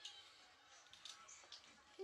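Near silence, with a few faint small clicks from a toddler's hands fiddling with the plastic parts of a trike at its handlebar.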